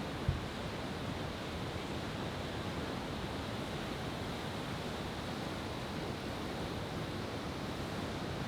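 Steady wash of ocean surf, with one short low thump a moment after the start.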